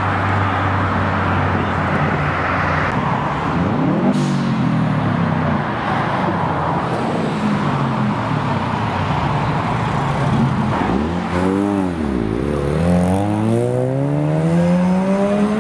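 Modified cars' engines idling and revving as they pull out. A blip rises and falls about a quarter of the way in. Near the end one engine's note drops, then climbs steadily as the car accelerates away.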